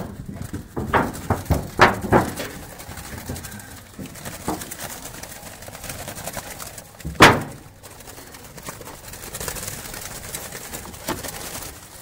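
Doves cooing, with scattered short knocks and rustles from the birds and their handling. A single sharp thump about seven seconds in is the loudest sound.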